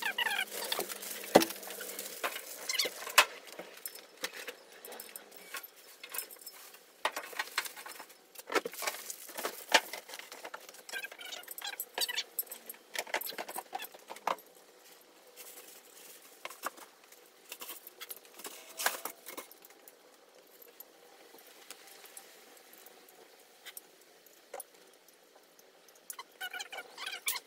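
Irregular clicks, knocks and rattles of steel desk-frame parts and screws being handled and fitted together, with one sharp knock about a second and a half in; quieter, sparser handling noise in the second half.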